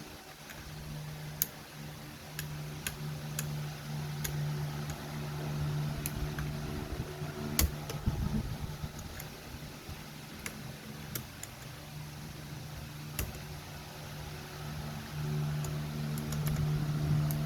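Sporadic sharp plastic clicks of keycaps being pressed onto a mechanical keyboard's blue switches, a dozen or more at irregular intervals, over a steady low hum that drops out in the middle and comes back stronger near the end.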